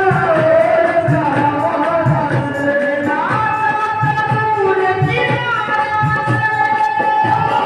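Devotional bhajan performed live: a woman singing a melody over a steady hand-drum beat, with held notes from a melody instrument.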